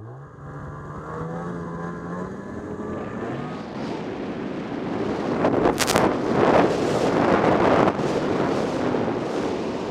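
Ski-Doo 600 E-TEC two-stroke twin snowmobile engine revving as the sled goes off a cornice drop. A short loud impact about six seconds in marks the landing, and loud rushing wind and snow noise runs on with the engine after it.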